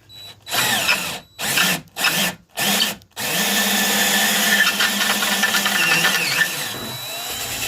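Electric drill boring into metal. It is triggered in four short bursts, then held on in one steady run of about four seconds that stops just before the end, with the bit slow to bite through the metal.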